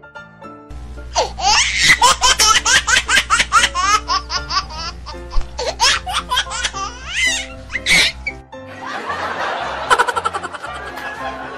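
Laughter sound effect: a long, quick run of ha-ha-ha bursts over background music with a steady bass, giving way after about eight seconds to a noisier, more spread-out stretch of laughter.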